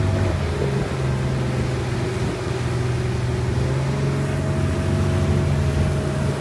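Motorboat engine running steadily at speed, a constant low hum, with rushing wind and water noise over it.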